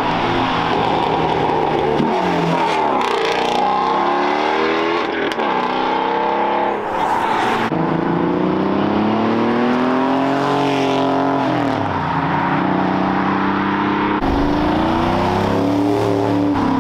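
High-horsepower muscle cars accelerating hard one after another, engines revving up in rising sweeps with the pitch dropping at each gear change.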